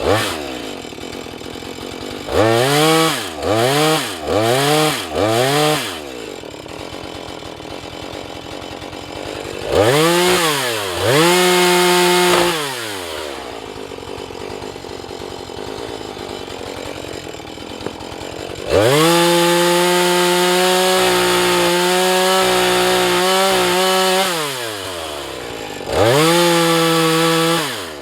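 Husqvarna 435 two-stroke chainsaw idling between throttle blips: four quick revs a few seconds in, two more near the middle, then held at full throttle for about five seconds while cutting wood, its pitch dipping under load, and one last rev near the end.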